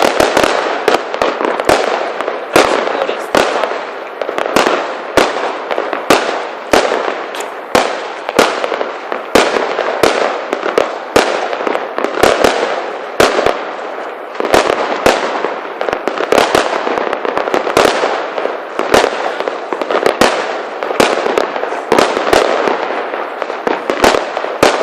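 Fireworks going off in rapid succession: many sharp bangs, several a second at irregular intervals, over a continuous dense noise.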